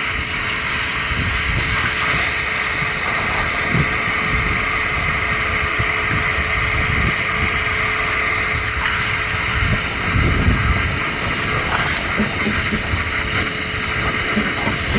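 Steady loud rushing noise of a running machine, with a faint steady hum underneath; it cuts off abruptly at the end.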